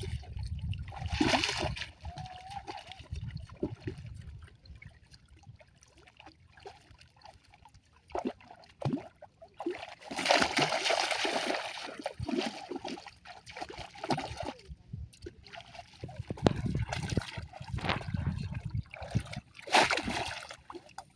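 Water splashing and sloshing in irregular bursts, with a loud splash about a second in, a longer stretch of heavy splashing around the middle, and another sharp splash near the end.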